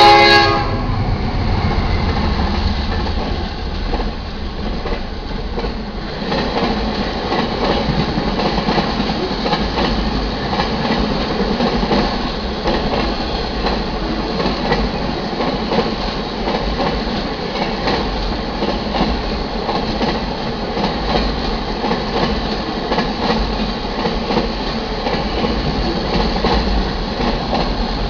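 A freight train's horn blast cuts off at the very start. The train then passes close by: first a deep rumble as the lead diesel locomotive goes through, then a long string of autorack cars rolling by with a steady rush and the clickety-clack of wheels over rail joints.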